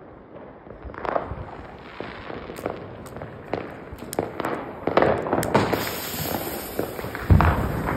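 Fireworks popping and banging in irregular bursts, with a heavier bang near the end. From about five and a half seconds in, the lit fuse of a Tropic 'Starlight' stick rocket hisses steadily as it spits sparks.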